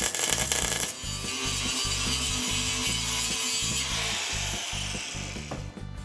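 MIG welding arc crackling for about the first second. A steadier hiss follows and fades out near the end, over background music with a steady beat.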